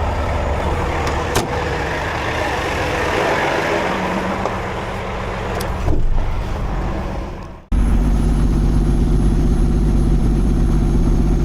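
Heavy diesel truck engine running, with outdoor noise and a couple of knocks. About eight seconds in the sound cuts abruptly to a steady low engine drone.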